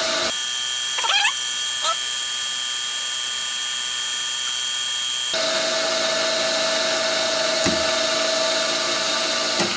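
Optimum MB4 mill-drill running steadily at a slow 95 RPM while an 8 mm high-helix spiral reamer cuts through the bore of a cast pillar block. There are a couple of short squeaks about a second in, and the machine's tone changes about halfway through.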